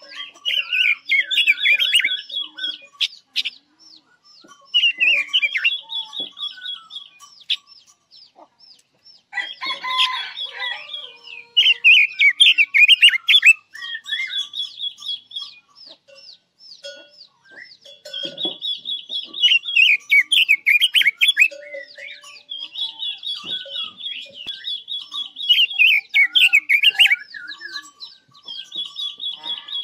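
Caged red-billed leiothrix singing as a trap decoy, in repeated phrases of fast warbling and high trills. Each phrase lasts a few seconds, with short pauses between them.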